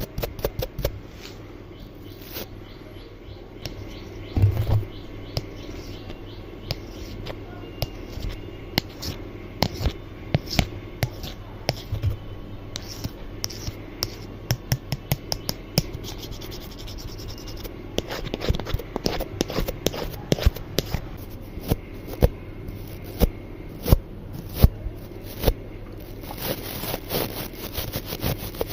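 Close-miked ASMR scraping and scratching with many irregular sharp taps and clicks, coming more densely in the second half.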